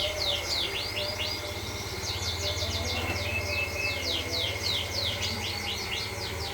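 Canaries chirping and singing in quick runs of short, falling notes, several a second, over a steady low hum.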